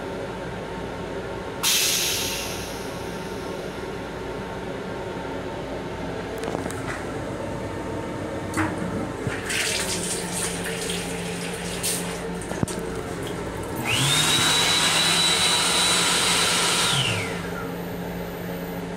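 Train restroom fixtures in turn. Near the start the vacuum toilet gives a sudden rush of air that fades over a second or two. About ten seconds in, the sink's automatic faucet runs briefly. From about 14 s the built-in hand dryer's blower spins up, runs for about three seconds with a steady whine, and winds down.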